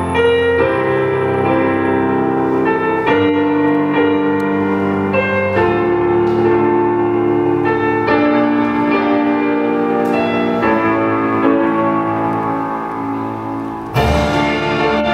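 Piano music, a slow piece of held notes that change every second or so. Near the end it cuts abruptly to a different, louder piece.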